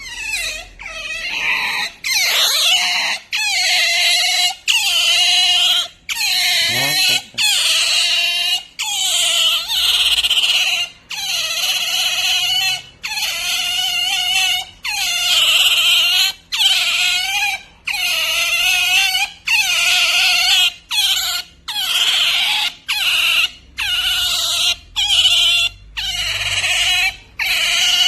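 A pet otter calling over and over in high-pitched, wavering squeals, about one a second. This is its pampering (attention-seeking) noise.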